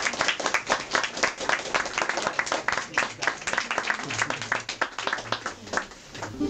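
A small audience applauding with hand claps at the end of a song, in a small room. The clapping is dense at first and thins out and fades toward the end.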